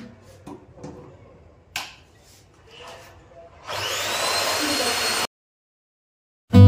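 A few light clicks and knocks, then an Inalsa Cozy Plus vacuum cleaner is switched on about four seconds in: its motor spins up with a rising whine into a steady rush of suction, which cuts off abruptly after about a second and a half.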